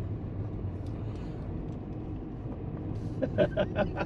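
Vehicle engine running steadily with a low hum. About three seconds in, a quick series of short vocal sounds begins, about five a second.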